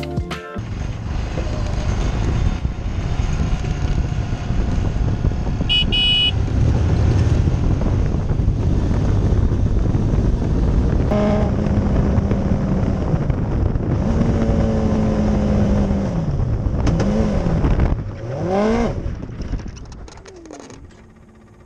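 Single-seater race car's engine running under the onboard microphone, revving up and falling back several times as it is driven off. Near the end the revs drop away and the engine dies: the novice driver has stalled it.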